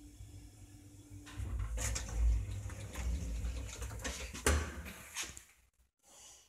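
Elevator stopping at a floor: a faint steady hum ends about a second in, then the doors rattle open and a hinged landing door is pushed open by hand, with a sharp latch click about four and a half seconds in.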